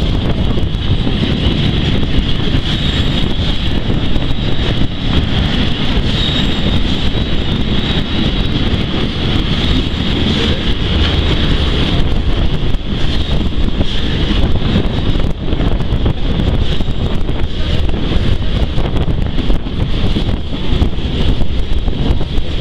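Steam-hauled heritage train running steadily along the line, heard from an open carriage window right behind the tender: a loud, unbroken rush of running-train noise and wind buffeting the microphone.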